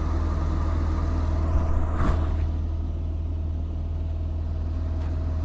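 Semi truck's diesel engine running with a steady low drone, heard inside the cab, with one short knock about two seconds in.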